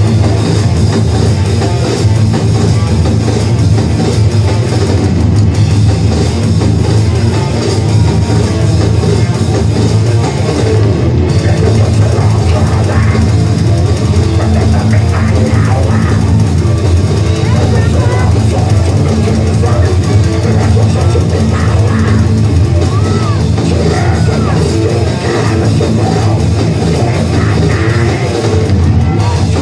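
Heavy metal band playing live: distorted electric guitars and a pounding drum kit, loud and continuous with a heavy low end.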